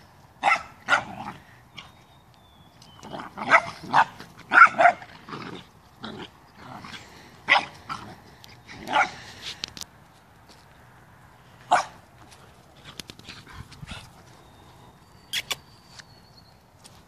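Dogs barking in rough play, a pit bull puppy and an adult dog, in about ten sharp single barks. The barks come thick in the first few seconds and grow sparser toward the end.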